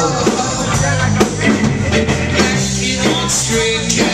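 Live rock band playing: distorted electric guitars over a drum kit, loud and continuous.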